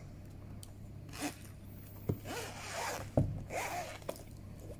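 Zipper of a Sony WH-1000XM4 hard-shell headphone carrying case being pulled open around the case in several short rasping pulls.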